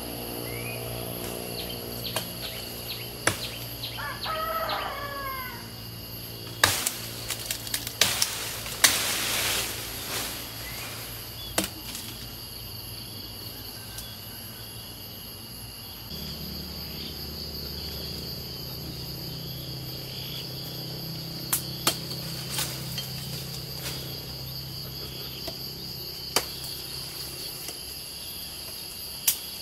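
Insects droning steadily, with a few sharp knocks scattered through as a machete chops at lychee branches. There is a burst of rustling leaves around nine seconds in, and a bird calls briefly about four seconds in.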